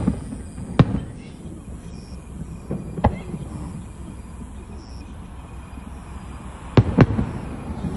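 Fireworks bursting overhead: about five sharp bangs at irregular intervals, each trailing off in a low rumble, with two bangs close together near the end.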